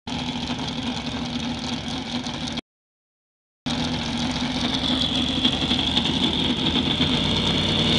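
A drag-race car's engine running steadily at idle. The audio cuts out completely for about a second, roughly two and a half seconds in, then comes back a little louder.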